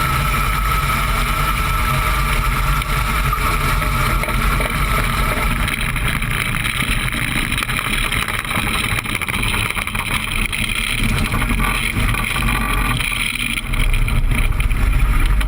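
Aircraft engine droning steadily, with wind rush on the microphone; it grows slightly louder near the end.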